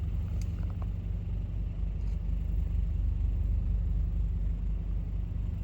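Diesel locomotives of a CSX freight train running, a steady low rumble of the engines with a few faint clicks in the first couple of seconds.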